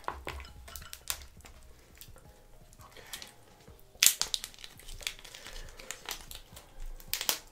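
Boiled shellfish shells being cracked and peeled apart by hand close to the microphone: a string of crackly snaps and crinkles, loudest about four seconds in and again just before the end.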